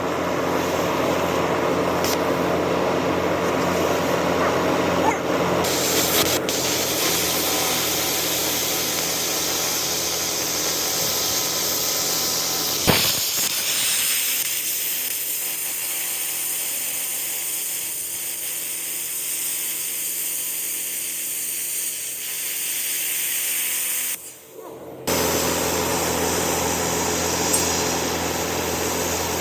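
Steady, loud hissing and whirring of metalworking power tools on a steel excavator bucket, changing character after a sharp click partway through and briefly dropping out near the end.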